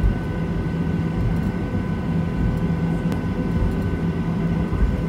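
Boeing 737-800's CFM56-7B engines running at idle, heard inside the cabin: a steady rumble with a few steady whining tones over it. There is a faint click about three seconds in.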